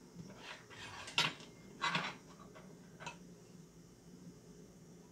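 A few light clinks and taps of a metal spoon against a glass jar of raspberry preserves as the preserves are scooped out. There are two clearer clinks about a second and two seconds in and a fainter one about three seconds in.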